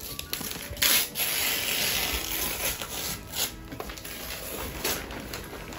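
Rubbing and scraping noise from handling a gift and its packaging, starting with a loud scuff about a second in and going on for a couple of seconds, then lighter scuffs.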